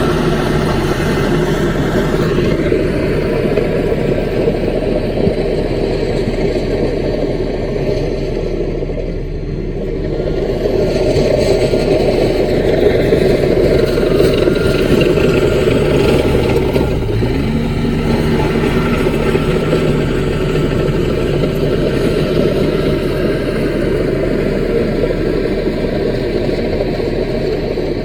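Diesel engine of a Caterpillar mini bulldozer running steadily, growing louder for a few seconds around the middle of the stretch.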